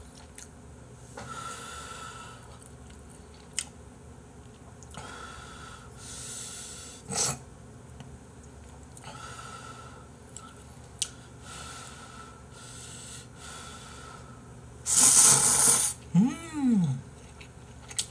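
A person eating ramyeon noodles: soft chewing, breaths through the nose and short slurps. Near the end comes one loud noodle slurp lasting about a second, followed by a short voiced 'mm' that rises and falls in pitch.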